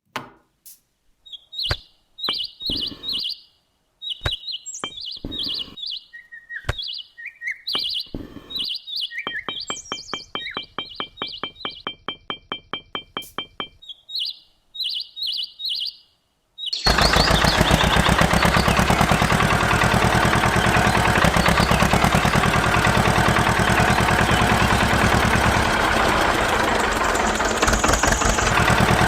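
Short bird-like chirps and clicks, with a quick run of ticks in the middle. About 17 s in, an engine starts abruptly and runs steadily and loudly with an even pulse.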